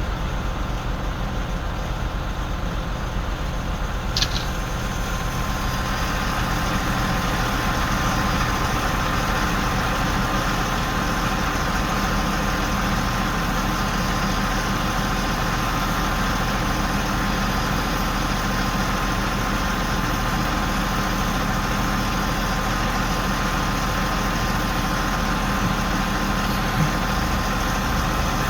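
Heavy engine of a mobile crane running steadily, getting fuller and louder from about six seconds in as it works. A single sharp click about four seconds in.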